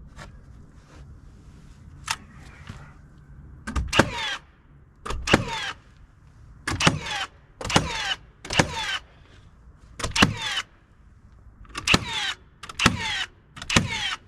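Nails being driven into live-edge poplar siding boards: about nine loud, separate half-second bursts, each starting with a sharp hit, at a steady working pace.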